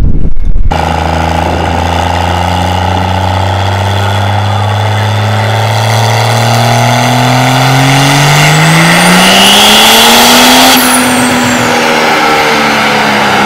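Dodge Ram Cummins diesel pickup making a full-throttle pull on a chassis dyno: the engine's pitch climbs steadily for about ten seconds with a high whine rising over it, then falls as the throttle is let off about three-quarters of the way through.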